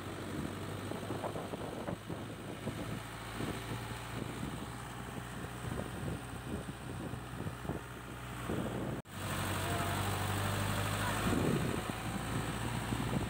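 A jeep's engine runs steadily while the vehicle is driven, with frequent light rattles and knocks from the body, heard from aboard. About nine seconds in, the sound breaks off sharply and a louder, steadier hum follows.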